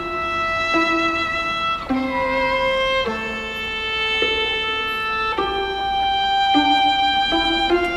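Background music: long held string notes, violin-like, moving to a new pitch about once a second.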